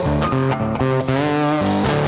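Background music: electric guitar playing a melodic riff with bent notes over bass and drums.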